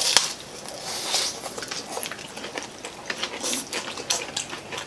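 Close-up wet eating sounds: chewing, slurping and lip smacks as stalks of steamed kangkong (water spinach) are sucked in and chewed, heard as a run of short, irregular wet clicks.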